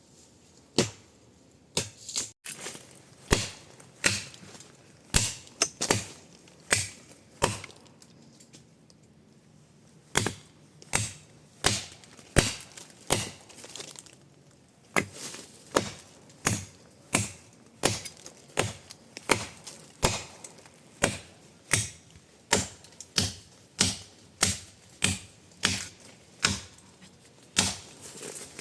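Repeated chopping strokes of a blade, about three every two seconds, each a sharp knock, with a couple of short pauses between runs of strokes.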